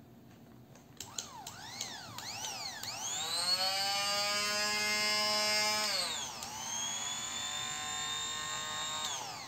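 The motor of a just-repaired Fakir hand blender is switched on in short pulses, whining up and winding down four times. It then holds at a steady high speed for about three seconds, drops off and picks up again at a somewhat lower pitch until near the end. The blender is running again after the repair.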